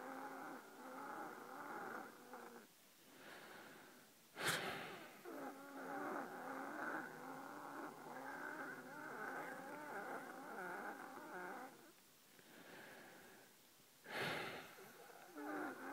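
A person's wheezing breathing: long exhalations carrying several wavering whistling tones at once, broken by short, sharp inhalations about four seconds in and again near the end.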